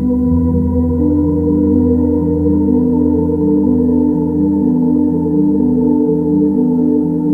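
Background music: sustained organ-like keyboard chords that shift every second or so over a held low bass note.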